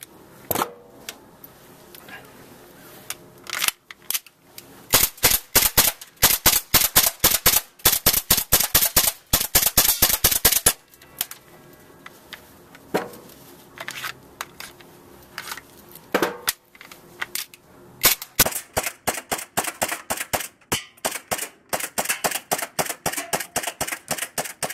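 Gas blowback airsoft pistol firing, each shot a sharp crack with the slide snapping back, as BBs strike a plastic Xbox console case. Shots come in quick strings from about five to eleven seconds in and again from about eighteen seconds on, with a few single shots between.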